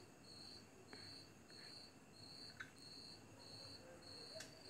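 Faint cricket chirping: a high chirp repeating evenly, a little under twice a second, over near silence, with a few faint clicks.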